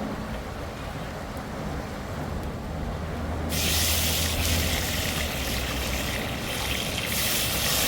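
River water rushing steadily, with a low rumble underneath; a much brighter, louder hiss of water starts abruptly about three and a half seconds in.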